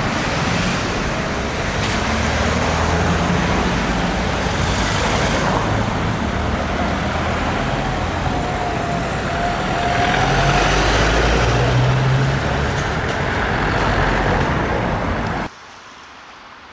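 Town-centre road traffic: cars and heavier vehicles passing in a steady rush of engine and tyre noise. The noise drops suddenly to a low background hush near the end.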